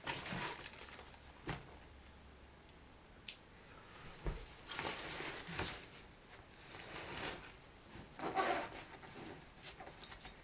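Clothes and bags rustling as a backpack is packed by hand, with small clicks and clinks of handled objects; the loudest rustle comes about eight seconds in.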